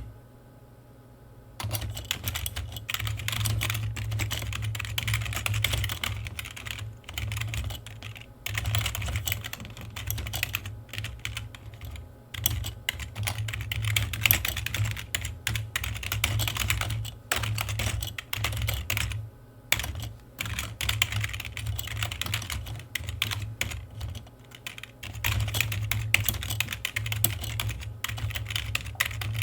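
Computer keyboard being typed on in fast, continuous runs of key clicks, broken by brief pauses of a second or so, with a steady low hum underneath.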